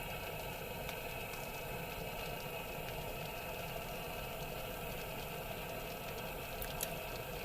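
Steady, even hum with a few fixed tones running through it, and a couple of faint ticks near the end.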